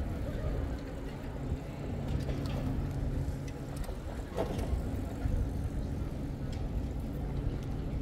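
City street ambience with a steady low engine hum from a nearby vehicle, scattered faint clicks, and one brief sharper sound about four and a half seconds in.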